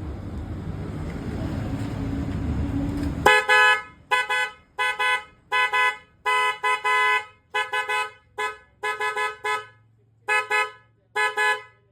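Newly fitted HJG car horn on a Maruti Suzuki Dzire sounded in a rapid series of more than a dozen honks, short taps mixed with longer blasts, starting about three seconds in after low rumbling noise.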